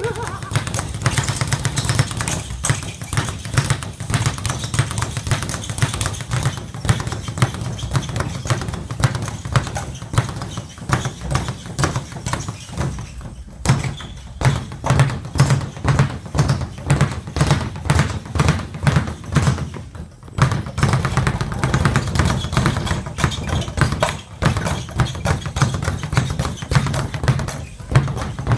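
Speed bag being punched in a fast, steady rhythm, rattling against its rebound platform, with short breaks in the rhythm about 14 and 20 seconds in.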